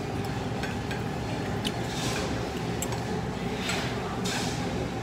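Restaurant dining-room background noise, a steady low murmur, with a few light clicks and clinks of tableware and a few brief soft rushes of noise.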